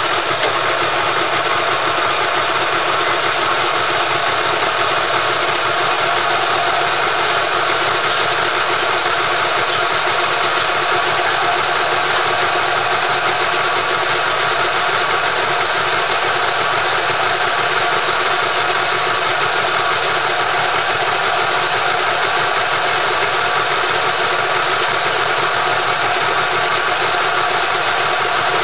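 Manual metal lathe running steadily, a tool bit cutting the spinning metal workpiece.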